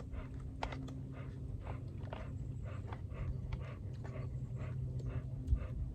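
Someone chewing a mouthful of noodles and meatballs: soft, evenly repeated mouth sounds about two to three a second, over a steady low hum.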